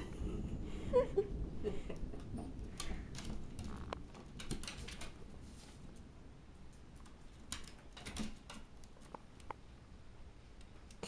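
A pet playing and pawing about: scattered light taps, scratches and rustles, busiest in the first few seconds and thinning out later, with a low rumble near the start.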